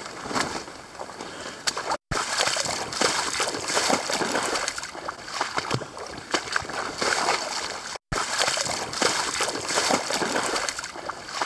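Footsteps splashing and sloshing through shallow water and mud in swampy ground while running, a quick uneven run of wet strikes, broken by two momentary dropouts.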